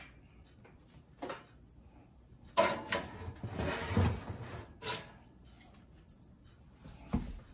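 Metal baking sheet and oven rack scraping as they are slid back into a hot oven, a rattling scrape lasting about a second and a half, followed by a sharp clink and a low knock near the end.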